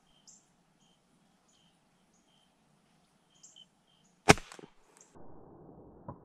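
A pellet air rifle fires a single shot about four seconds in, a sharp crack. Before it, small birds chirp in short repeated notes, and after it comes rustling handling noise with a few knocks.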